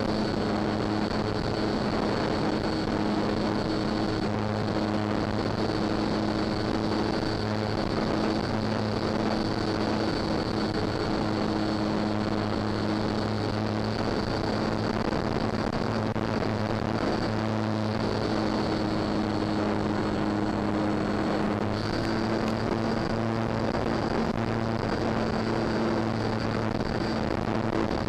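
Electric motor and propeller of a Durafly Tundra RC plane recorded on board in flight: a steady buzzing hum with a thin high whine over wind noise. The pitch shifts slightly with throttle, most clearly about 22 seconds in.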